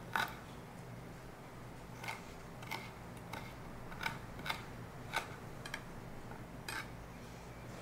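Chef's knife chopping fresh ginger on a wooden cutting board: a slow, uneven series of short, sharp knocks of the blade on the board, about nine in all.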